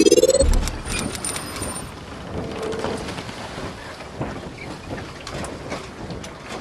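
Logo-intro sound effects: a rising whoosh that ends with a low boom about half a second in, followed by a steady crackling hiss with scattered clicks.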